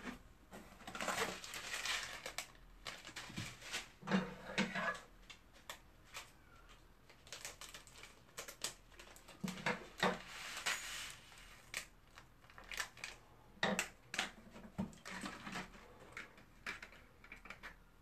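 Handling sounds at a ceramic bowl: a small plastic food packet rustling and dry food being shaken out of it into the bowl, with irregular clicks and clinks against the bowl.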